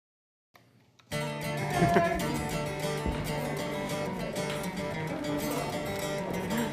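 Silence, then about a second in guitar music starts abruptly and plays on at an even level.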